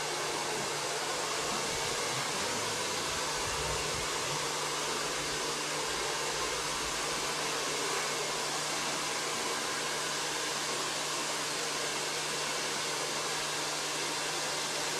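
Handheld hair dryer blowing steadily: a constant rushing hiss with a low motor hum under it.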